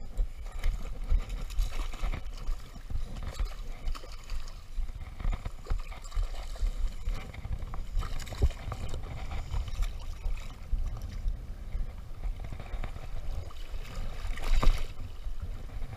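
Shallow seawater sloshing and splashing around a wading angler, with a steady low rumble of wind on the microphone. About fourteen and a half seconds in there is a louder splash as the hooked snook is grabbed at the surface.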